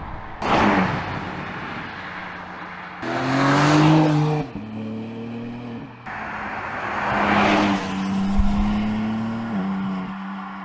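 BMW X4 M Competition's 3.0-litre twin-turbo inline-six with M sport exhaust, driving past in a string of short clips with abrupt cuts between them: a pass-by that swells and fades about half a second in, a louder pull under acceleration with rising engine pitch around three to four seconds in, and another pass-by swelling and fading around seven seconds in.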